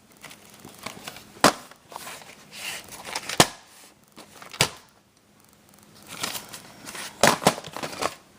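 A VHS cassette and its plastic case being handled, with several sharp clicks and rustling.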